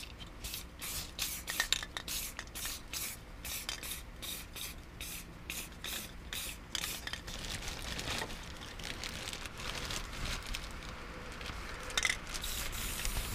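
Aerosol can of high-temperature engine enamel hissing as it sprays: quick short bursts, about three a second, at first, then longer, steadier passes from about eight seconds in.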